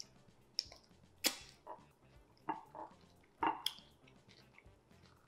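Wet mouth sounds of eating plantain fufu by hand: a handful of short wet smacks and clicks from licking fingers and chewing, the loudest just over a second in.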